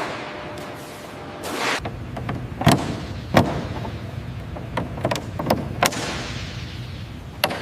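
A series of sharp knocks and clanks, about eight in all and irregularly spaced, over a low rumble that comes in about two seconds in.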